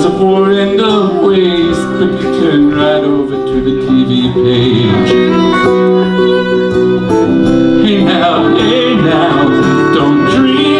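An acoustic guitar and a violin playing a song together live, with sustained violin notes over the strummed guitar.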